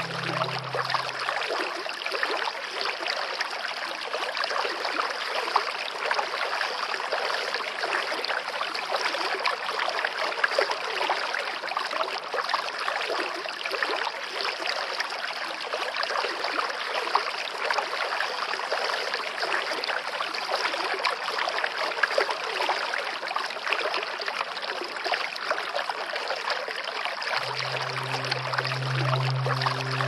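Steady rushing of running water, like a stream, with a low music tone fading out about a second in and returning near the end.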